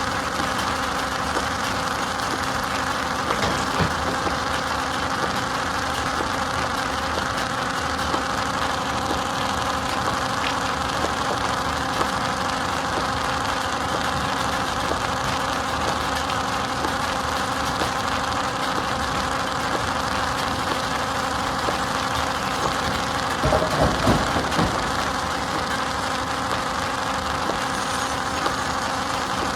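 Stone crusher machinery running steadily: a continuous mechanical hum with scattered knocks, and a short run of louder clunks about four-fifths of the way through.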